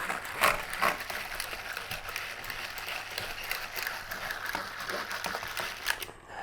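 Eggs being whisked by hand in a bowl: a steady, rapid scraping and clicking of the whisk against the bowl, which stops abruptly near the end.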